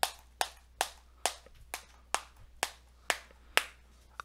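A can of Kayak Mint dip being packed: the can is tapped sharply over and over, about two taps a second, to pack the tobacco down.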